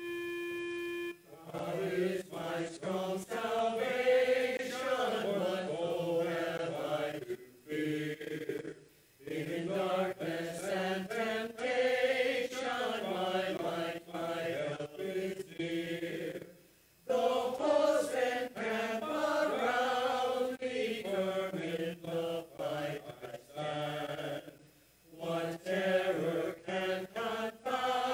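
Mixed church choir of men's and women's voices singing an anthem, phrases broken by short breath pauses. A held keyboard chord sounds in the first second, before the voices come in.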